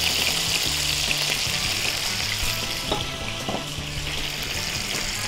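Chopped bacon frying in melted butter in a pan, a steady sizzling hiss with a few faint spits and ticks.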